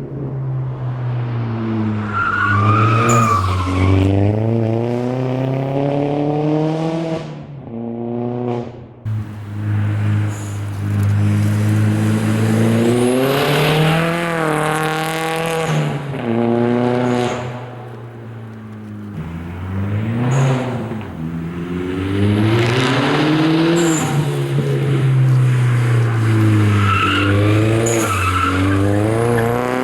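2005 VW Jetta GLI's turbocharged 1.8-litre four-cylinder, uncorked by a catless, muffler-deleted 3-inch straight-pipe exhaust, repeatedly climbing in revs and dropping back. The exhaust note is loud and raspy.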